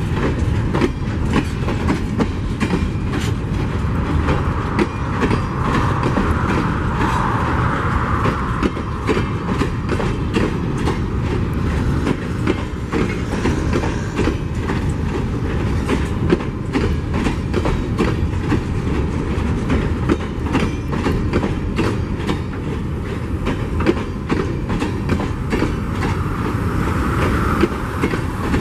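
Empty steel mining hopper wagons rolling past close by: a steady rumble, with the wheels clicking and knocking over the rail joints.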